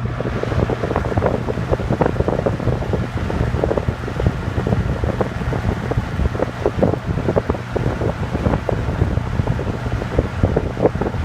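Toastmaster Model 7327 Slim Line 20-inch box fan running on its high, turbo boost speed: a steady motor hum under a rush of air that buffets the microphone in gusts.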